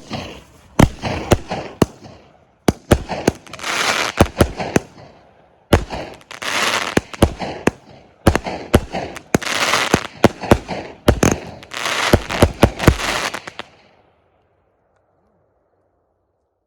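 Consumer firework cake firing rapid shots: sharp reports, each cluster followed by a long hiss, in about five waves. It stops about 14 seconds in.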